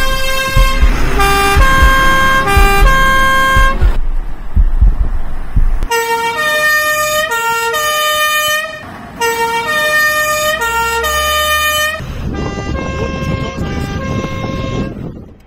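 Fire engines' sirens sounding as they pull out of the station, their tone alternating back and forth in pitch, over the rumble of the engines; there are two runs with a short break between them, one vehicle after the other. In the last few seconds the siren is fainter and heard from inside the crew cab.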